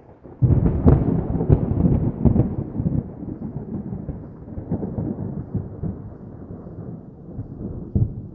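A thunderclap: it breaks suddenly about half a second in with a few sharp cracks, then rolls on as a long, slowly fading rumble, with one more crack near the end.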